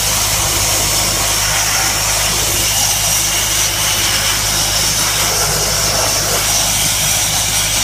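Sandblaster nozzle hissing steadily as abrasive strips paint from a car's sheet-metal body, over a steady low engine drone.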